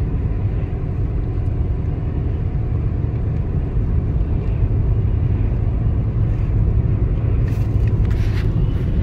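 Steady low rumble of road and engine noise inside a car moving at highway speed. A few brief clicks near the end.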